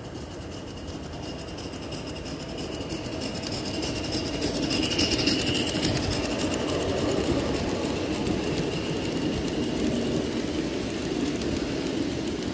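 Large-scale garden railway train running past close by: its metal wheels roll along the rails, growing louder as it approaches and loudest from about five seconds in as the freight cars and coach go by.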